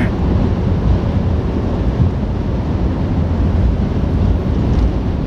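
Steady road, wind and engine noise inside a pickup truck's cab cruising at highway speed.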